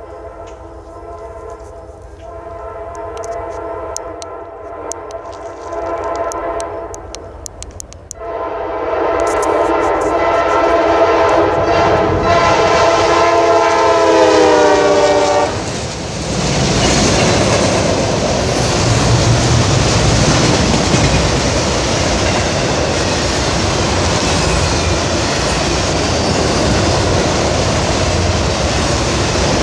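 Locomotive horn sounding a multi-note chord, with a long blast from about 8 s in whose pitch drops as the locomotive passes, about halfway through. Then the train rolls by with a loud steady rumble of wheels on rail.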